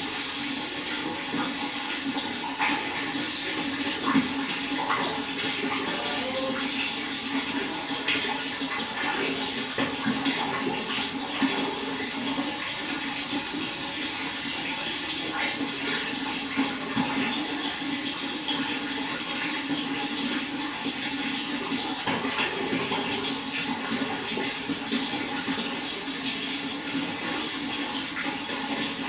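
Running water flowing steadily, a continuous rush with many small splashes.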